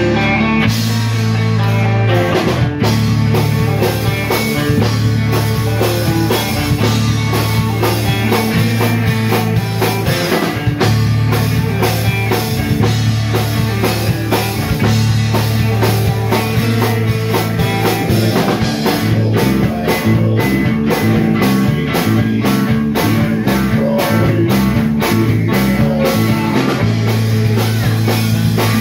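Live rock band playing: electric guitars through amplifiers, bass and a drum kit, with sung vocals over a steady beat.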